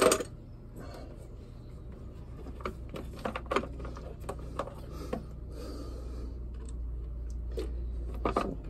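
Metal hand tools clinking and clicking as someone rummages for a socket, with a sharp knock at the start and scattered light knocks over a steady low hum.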